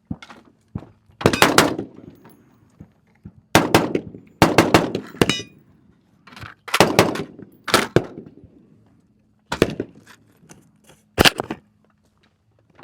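A firearm fired in a slow string at an outdoor range, about nine loud shots at an uneven pace, each with a short ringing tail. Fainter shots from other guns sound in between.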